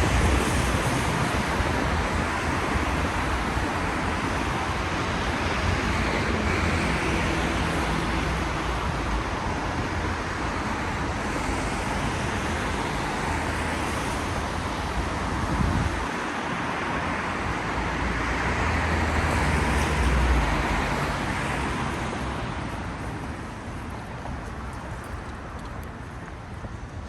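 Road traffic on a wet city street: passing vehicles with tyre hiss and engine rumble that swells twice and fades away near the end.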